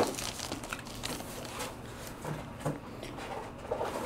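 Faint handling noise: a few light clicks and soft rustles as a plastic-cased graded card is slid out of its foil wrapper and handled.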